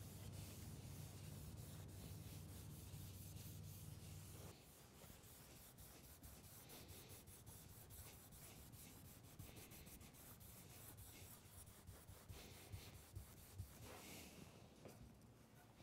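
Faint rubbing of a soft cloth wiping Danish oil onto pine pallet wood. A low steady hum stops suddenly about four and a half seconds in, and a few faint knocks come near the end.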